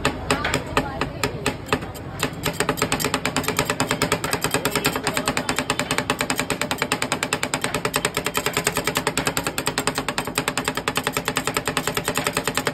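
Two steel spatulas chopping guava pieces on the metal cold plate of a rolled-ice-cream counter: a rapid, steady clatter of blade edges striking the plate, many strikes a second.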